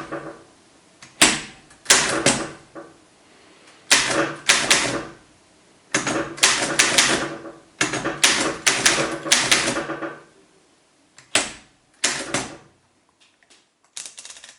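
Old manual typewriter being typed on: the keys strike in quick bursts of several sharp clacks with short pauses between, ending in a few light clicks.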